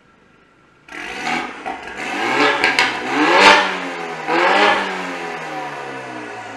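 BMW F30 328i's turbocharged four-cylinder engine, breathing through an Armytrix valved exhaust with the valves open. From about a second in it is revved in a series of throttle blips, the highest about halfway. It then drops back to a steady idle.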